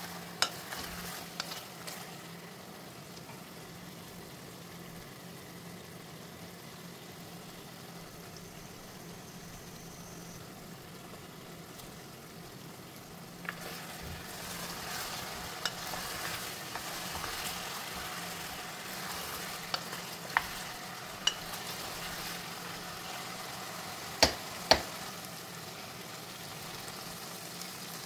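Chicken pieces sizzling in oil in an aluminium pressure cooker while being stirred with a wooden spatula. The sizzle grows louder about halfway through, and a few sharp knocks ring out against the pot, the two loudest near the end.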